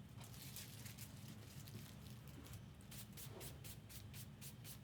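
A hand brush sweeping a table top in short, quick strokes, about five a second and crisper in the second half, over a low steady hum.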